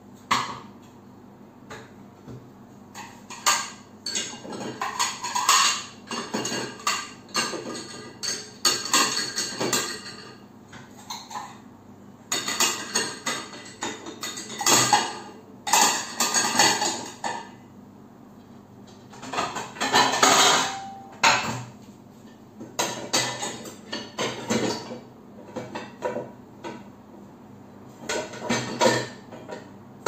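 Dishes, plates and a non-stick frying pan being loaded into a dishwasher's lower wire rack: irregular clattering and clinking of crockery and metal against the rack, in bursts with short pauses between.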